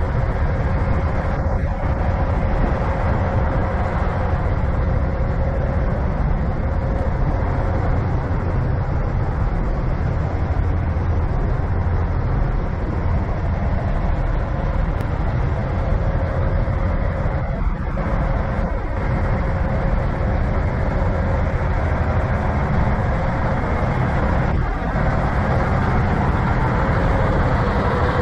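Steady running noise of a semi truck's diesel engine: a deep rumble with a constant mid-pitched hum over it, unchanging throughout.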